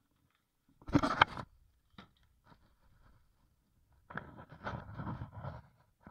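Handling noise from a McCulloch Timber Bear chainsaw being shifted on a workbench: a loud scraping knock about a second in, a single click at two seconds, then a stretch of scraping and rubbing from about four seconds in.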